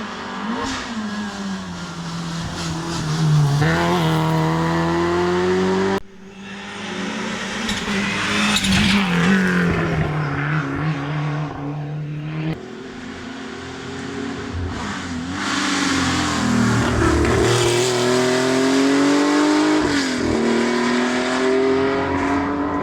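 Historic rally cars at full effort on a special stage, engines revving hard and dropping back through gear changes as they pass. The sound breaks off abruptly twice, about six and twelve and a half seconds in, as one car's pass gives way to the next.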